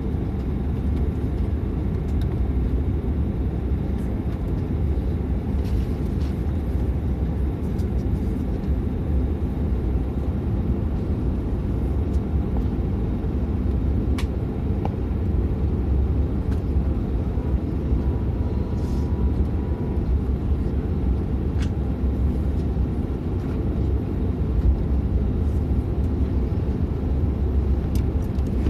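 Steady low rumble inside the passenger cabin of a De Havilland Canada Dash 8-400 turboprop airliner during pushback, with a few faint ticks and a short faint tone about two-thirds of the way through.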